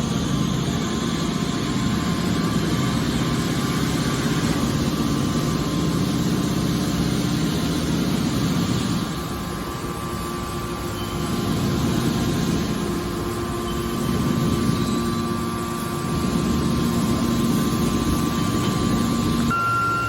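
Scrap car baler running: a steady machine drone with a constant hum, easing slightly about halfway through.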